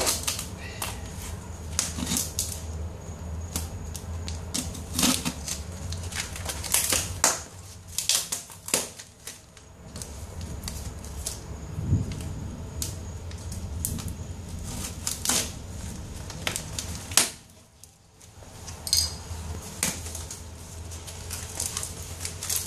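Packing tape being pulled and torn off a cardboard shipping box, with the cardboard crackling and rustling in irregular bursts of clicks, over a steady low hum.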